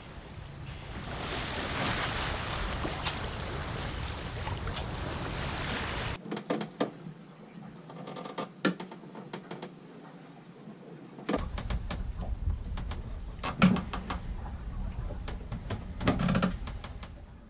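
Wind and water rushing past a sailboat under way for about six seconds. Then, below deck, the Cape Horn wind vane's steering lines, blocks and rudder quadrant work the rudder with irregular clicks and ticks and a few louder knocks and creaks.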